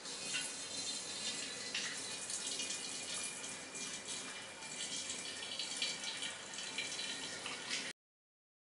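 Soapy liquid pouring from a plastic measuring jug through a funnel into a large glass bottle: a steady trickling and splashing of liquid filling the bottle, which cuts off abruptly near the end.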